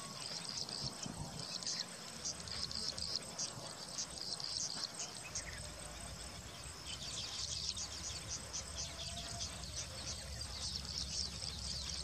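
Baya weaver colony chattering: many high, rapid chirps in irregular runs, growing denser in the second half.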